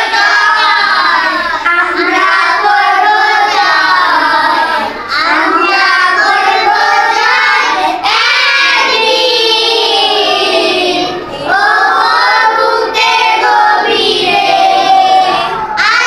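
A group of young schoolchildren singing a song together, their voices overlapping, with short breaks between lines.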